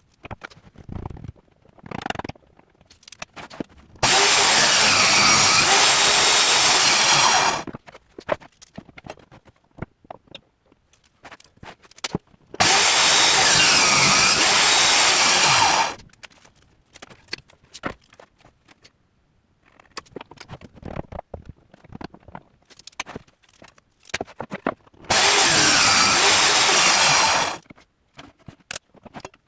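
Power saw cutting wood in three separate cuts of about three seconds each, with clicks and knocks of handling the workpiece in between.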